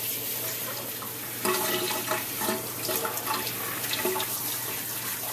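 Tap water running into a sink and splashing over a puppy's coat as the soap is rinsed out.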